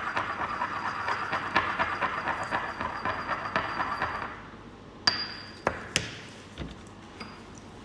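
Ceramic pestle scraping and grinding round a ceramic mortar in quick strokes, working ground fluconazole tablet powder into water to make a suspension. The grinding stops about four seconds in and is followed by a few sharp clinks of ceramic.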